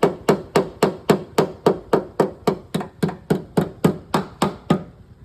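A hammer tapping steadily on a car's sheet-metal body panel, working out a dent cold: a fast even train of about three to four ringing blows a second that stops near the end.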